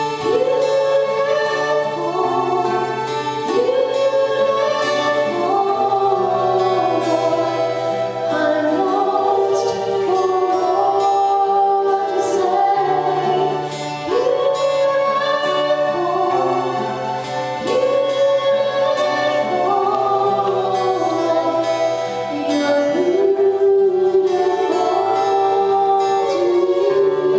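A woman sings a worship song into a microphone, backed by a strummed acoustic guitar and an electric keyboard holding steady low notes.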